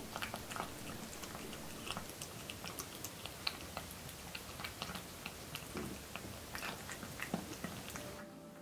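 Tabby cat eating wet food chunks from a metal bowl: close, irregular chewing with a quick run of small clicks and smacks.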